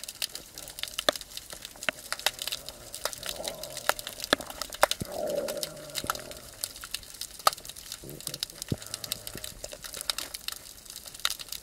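Underwater crackling heard through a submerged camera: a dense, irregular patter of sharp clicks, with a muffled hum swelling and fading a few seconds in.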